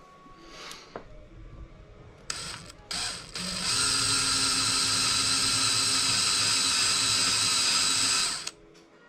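Electric drill boring a hole in a wooden pen blank: two brief spurts, then a steady run of about five seconds that stops abruptly near the end. The bit is wandering off centre as it cuts.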